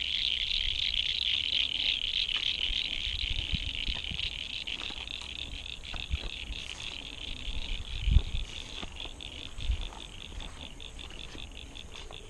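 A chorus of frogs calling: a dense, high-pitched run of rapid pulsed calls that slowly fades. There are a few low thumps about eight and ten seconds in.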